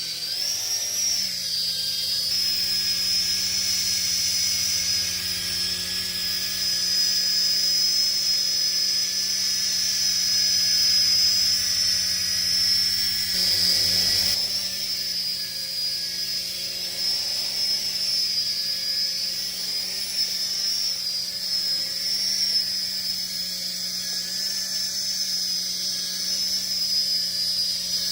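Toy RC helicopter's small electric motors and rotors whining steadily in hover flight, a high-pitched whine that climbs in pitch at the start and then holds with slight wavers.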